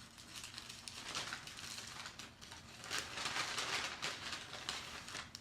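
Close-miked eating sounds: chewing and the soft crackle and crinkle of fried food and its paper wrapping being handled, a little louder about three to four seconds in.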